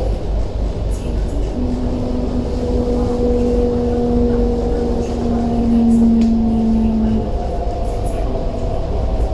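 Inside an MTR Tuen Ma Line C-train running through a tunnel and slowing into a station: a steady, loud rumble of wheels and car body. A steady hum comes in about one and a half seconds in and stops about seven seconds in.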